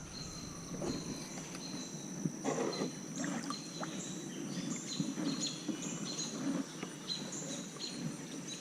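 Kayak on a swampy creek: water and paddle sounds with occasional light knocks against the hull. Behind them runs a steady high-pitched trill that stops and starts.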